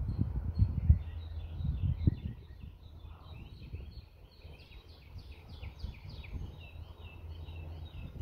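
Small birds chirping in a quick run of short calls, loudest in the middle and easing off near the end. Low thumps on the microphone in the first two seconds.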